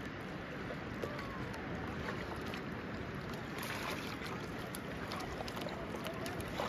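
Kayak paddles dipping and splashing in calm water over a steady wash of wind and water noise, with a cluster of sharper splashes around the middle and again near the end.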